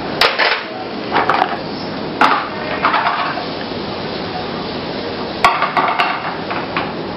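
Metal utensil clattering and scraping in a frying pan as sautéing vegetables are stirred, in several short bursts, over a steady hiss.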